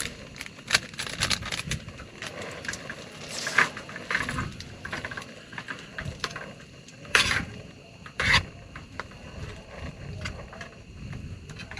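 Camp cookware and gear being handled: scattered clicks, rattles and rustling, with two louder knocks about seven and eight seconds in.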